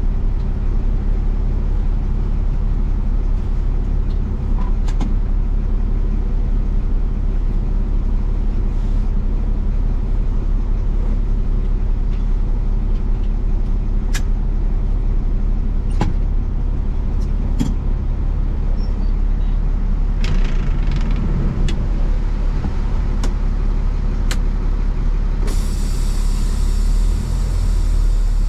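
Truck engine running steadily with road noise while driving, a constant low hum with a few light clicks.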